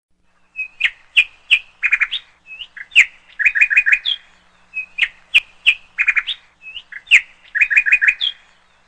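Small bird chirping: short high chirps and quick rapid trills in a clean, dry run with no background noise, and the same run of calls heard a second time about four seconds in.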